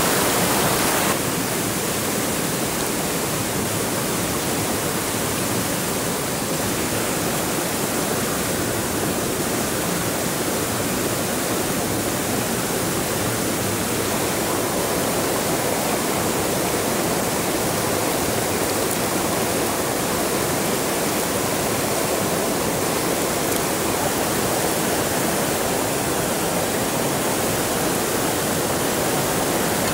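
Steady rushing of water, an even unbroken hiss across high and low pitches that drops a little in level about a second in.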